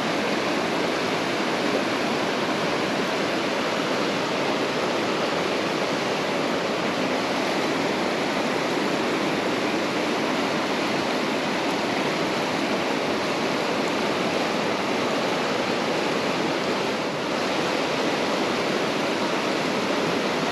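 Mountain trout stream rushing steadily over rocks, a constant even wash of water.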